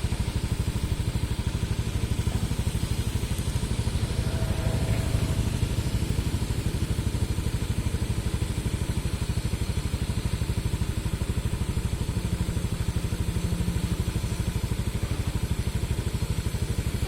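Hitachi excavator's diesel engine running steadily with a rapid, even throb.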